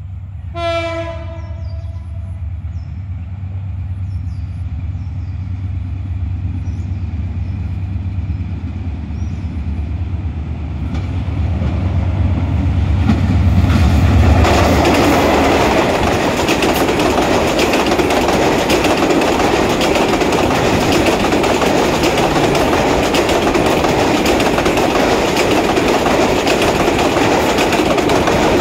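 A diesel locomotive sounds one short horn blast just after the start, then its engine's low rumble grows as it approaches. About halfway through the locomotive reaches the microphone and the passing passenger coaches give a steady loud clatter of wheels over the rails.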